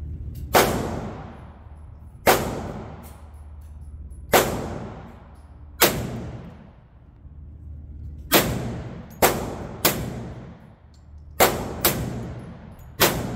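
Gunshots fired one at a time: about ten single shots, spaced a second or two apart at first and coming closer together in the second half, each with a ringing tail.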